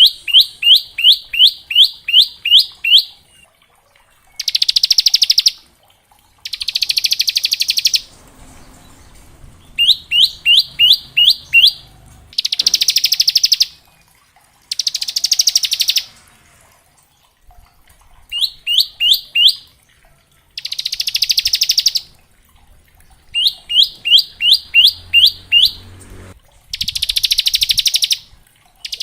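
Bar-winged prinia (ciblek) singing. Runs of six to ten sharp, separate chirps at about three a second alternate with rapid buzzing trills, the 'ngebren' burst, each lasting about a second and a half. The phrases repeat with short pauses between them.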